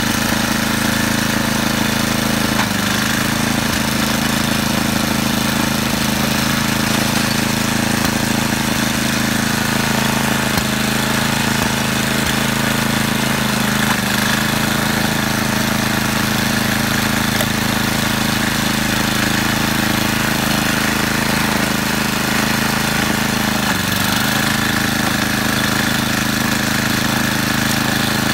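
Snowblower engine running steadily under load while clearing deep, wet snow, its pitch dipping briefly a couple of times.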